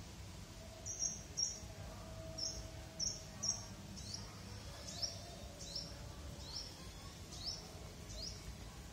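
A bird chirping over and over: a few short high chirps, then a steady run of quick falling chirps, a little more than one a second.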